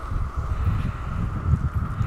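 Wind buffeting the microphone, a low rumble.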